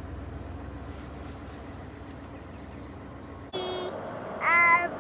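Steady road and engine rumble inside a moving car, then an abrupt cut, about three and a half seconds in, to a child singing.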